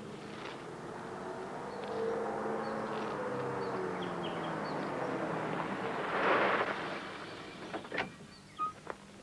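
Car engine running as a car drives along a dirt road, its note rising and then falling as it comes close. About six seconds in there is a loud rush of tyre and gravel noise as it passes, followed by a few short knocks near the end.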